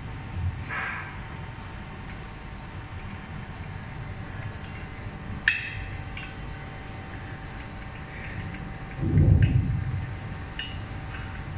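An electronic beeper repeats about twice a second over a steady machine hum in a factory workshop. About halfway there is a sharp click, and near the end a louder low thump comes from the metal frame of a thermoforming machine's robot hand as it is handled.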